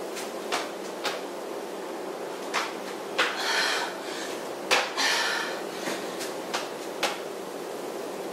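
Thumps and slaps of a person doing burpees on a yoga mat laid over a tile floor: hands landing on the mat, feet kicking back into a plank and landing from jumps. The thumps come irregularly, every half second to a second and a half, some followed by a short scuffing rush.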